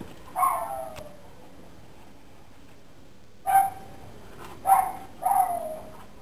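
Boxer puppies yelping as they play: four short, high yelps, each dropping in pitch, one about half a second in and three close together in the second half.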